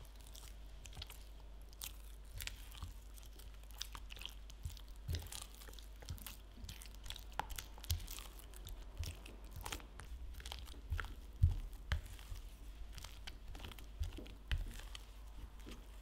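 A spatula beats an egg into thick choux pastry dough in a glass bowl, making irregular wet slaps and squelches several times a second. The loudest slaps come about two-thirds of the way through.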